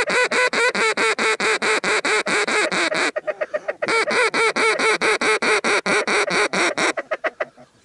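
Duck call blown in two long runs of rapid, evenly spaced quacks, about six a second, with a short break about three seconds in. It is calling passing ducks down to the decoys.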